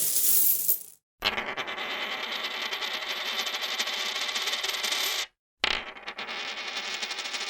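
Metal coins clinking: a short jingle, then a dense, steady rattle of many coins for about four seconds. After a brief break, another rattle begins with a sharp clink and keeps going.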